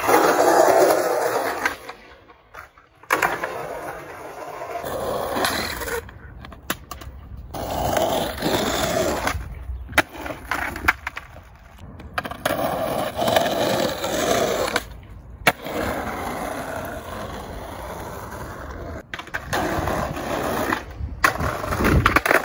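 Skateboard wheels rolling on rough asphalt in a series of clips that cut off sharply, with the clack of the board popping and landing. Near the end the board slides along a concrete ledge.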